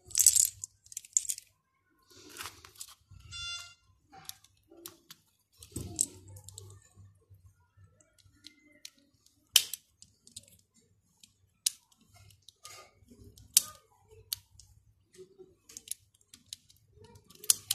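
Small plastic clicks and taps from handling a juicer's push-button switch strip as its plastic button caps are pulled off and worked over for cleaning. There are sharp separate clicks every second or two and soft handling noise, with one brief squeak a few seconds in.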